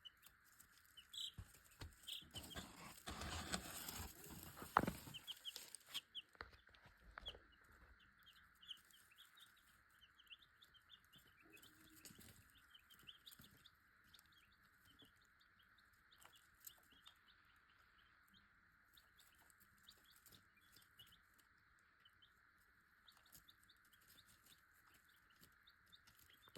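Baby chicks peeping softly and continuously in their brooder. Rustling and a sharp knock in the first few seconds, then only the faint peeping.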